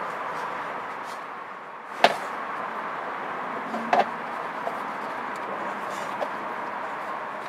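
Oil filter wrench knocking against a car's oil filter as it is fitted and turned: a sharp knock about two seconds in, another about four seconds in, and a few lighter ticks, over a steady background noise.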